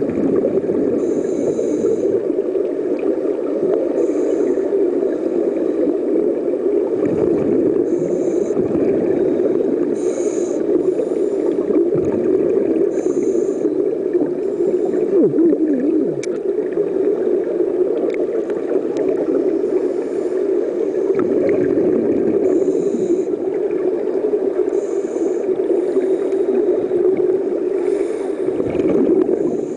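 Underwater sound in a scuba diving pool: a steady, muffled rumble of water, with a short hiss from scuba regulator breathing and bubbles recurring about every two to three seconds.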